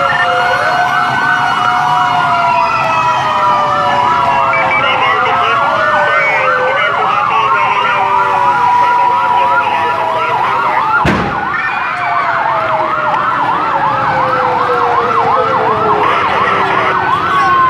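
Several fire engine sirens sounding at once, answering a large fire: slow wails rising and falling over rapid yelps, overlapping out of step. A single sharp knock cuts through about eleven seconds in.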